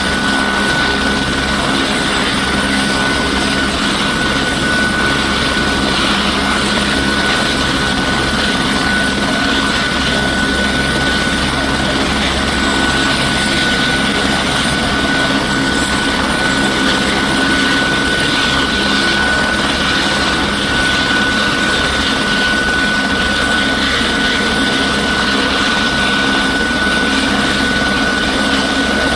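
An Airbus AS350 Écureuil helicopter's turboshaft engine and main rotor running steadily on the ground, a constant loud mechanical noise with one steady high-pitched tone held over it.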